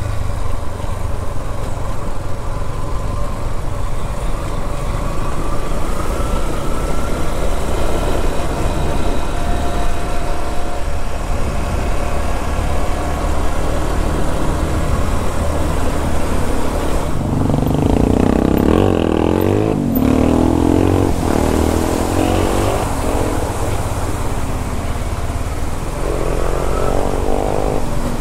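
Yamaha XTZ 150 single-cylinder motorcycle running while being ridden, under a steady low rumble. About two-thirds of the way in, a louder engine note rises and falls for a few seconds, and it comes again briefly near the end.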